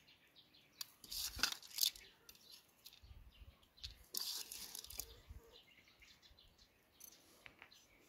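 Faint rustles and light clicks of hands picking barberries from a metal bowl and scattering them over plates of rice, bunched in two short spells in the first half.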